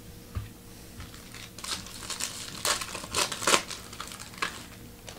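Plastic trading-card pack wrapper crinkling in the hands, a quick run of sharp crackles through the middle, after a soft thump.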